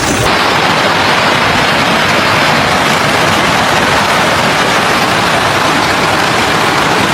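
Hailstorm: a loud, dense, steady hiss and patter of hailstones pelting down.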